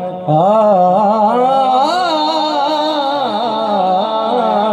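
A man's amplified voice singing a Sufi kalam: a wordless ornamented run that starts about a third of a second in, its pitch bending and wavering continuously, after a long held note.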